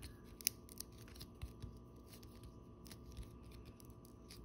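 Faint irregular clicks and rustling of a stack of 1993 Fleer Ultra baseball cards being handled and pried apart with the fingers. The fresh-pack cards are stuck together.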